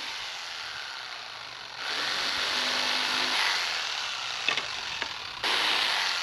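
Corded jigsaw running, its blade cutting small radiused corners into a strip of wood. The cutting gets louder about two seconds in and again near the end, with a couple of short clicks just before the second step.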